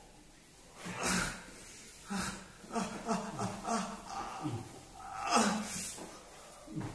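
A man groaning and breathing hard in pain, several falling groans with sharp breaths, under a firm abhyanga oil massage meant to break up stagnant blood and swelling in his legs.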